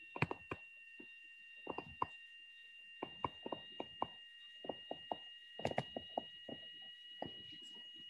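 Stylus tapping and scraping on a tablet screen during handwriting: faint short clicks in small irregular clusters. A faint steady high-pitched whine sits underneath.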